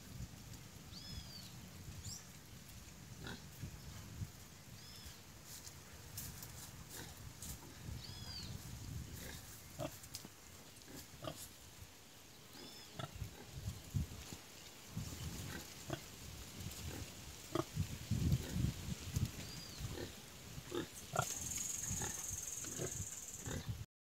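Heavily pregnant sow grunting softly and repeatedly, the grunts growing louder and more frequent in the second half. Short high chirps repeat every few seconds above them.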